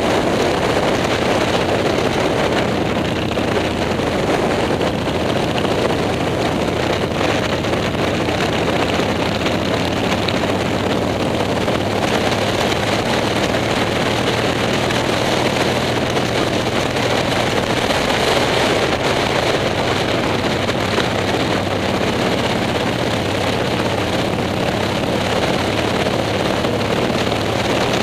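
Motorcycle engine running steadily while riding, heard from an onboard camera with wind rushing over the microphone.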